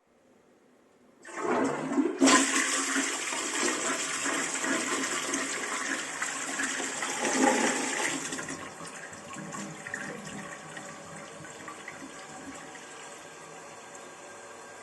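Toilet being flushed: water rushes in suddenly about a second in, runs loudly for several seconds, then dies down to a quieter steady hiss of the cistern refilling.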